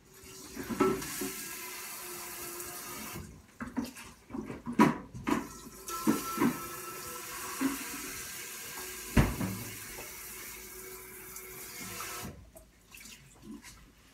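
Kitchen sink tap running, shut off about three seconds in and turned back on a few seconds later, then off again near the end. Several sharp knocks and clatters of dishes or a pan are handled under and beside the water.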